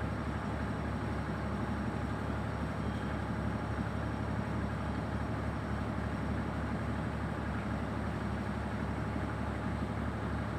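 An engine running steadily at idle: a low, even hum with a fine regular throb.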